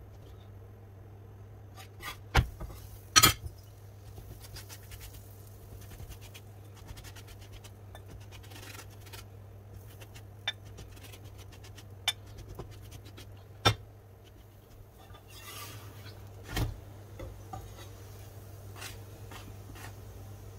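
Kitchen utensils scraping and clinking against dishes, with a few sharp knocks scattered through, over a steady low hum.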